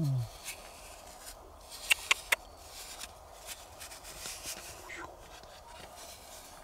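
Quiet rubbing and scraping of hands handling a gold-painted horse figurine in loose dry soil, with three sharp clicks close together about two seconds in. A short falling vocal exclamation trails off at the very start.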